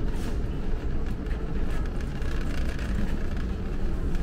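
Wire shopping cart rolling over a concrete store floor: a steady low rumble.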